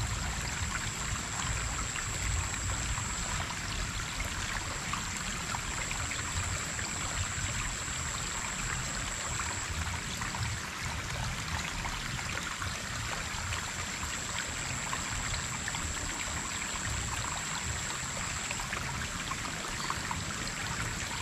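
Shallow stream water flowing and trickling, a steady even hiss, with a thin high-pitched whine above it that breaks off briefly a few times.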